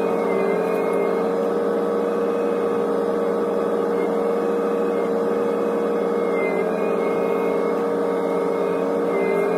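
Hitachi ZX125W wheeled excavator's engine and hydraulics running under load, heard from inside the cab: a steady hum with a constant whine, dipping slightly in pitch now and then as the boom lifts and swings.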